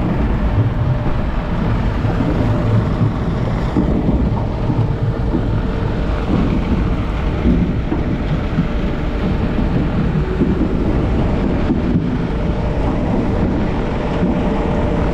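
ROPA sugar beet cleaner-loader running beside the trailer: a loud, steady mechanical rumble with a faint hum, and wind buffeting the microphone.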